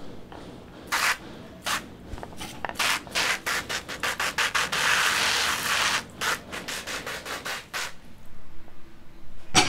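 Plastic hand-pump pressure sprayer being pumped up, a run of short swishing strokes about three a second, with a stretch of steady hiss in the middle. It is being pressurised before spraying plants against spider mites.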